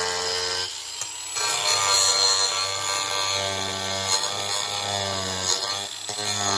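Angle grinder running, its disc grinding down melted plastic lugs on a MAXTRAX recovery board: a steady motor whine under a grinding hiss, the tone dropping out briefly about a second in.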